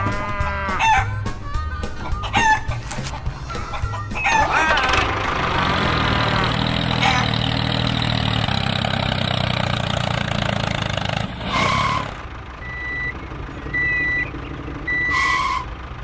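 Rooster crowing and chickens clucking, a farmyard sound effect. Three short high beeps come near the end.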